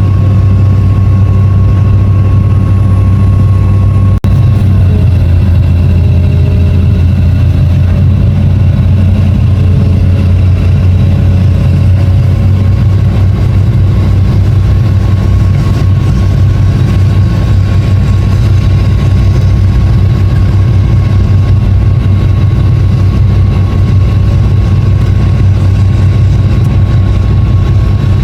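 Long-reach excavator's diesel engine running with a steady heavy drone and a thin high whine. About four seconds in there is a brief click and the whine stops, then shifting tones rise and fall for several seconds as the machine works; the whine returns later.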